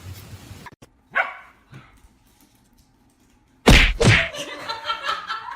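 A dog barks twice in short sharp calls, then after a pause there is a loud double thump, and music comes in near the end.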